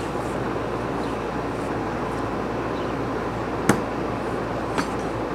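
Throwing knives striking a wooden target: a sharp knock about two thirds of the way in and a lighter one about a second later, over a steady hiss.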